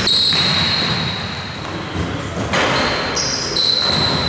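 Pickup-style basketball game in a gym: the ball bouncing and sneakers moving on the hardwood floor, echoing in the large hall.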